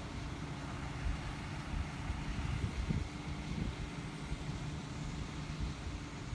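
Concrete mixer truck's diesel engine running steadily at a foundation pour, a constant low hum.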